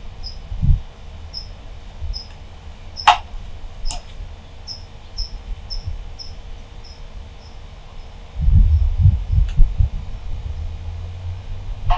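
A cricket chirping steadily, about one to two short high chirps a second. Under it is a low rumble that swells for a couple of seconds near the end, with two sharp clicks a few seconds in.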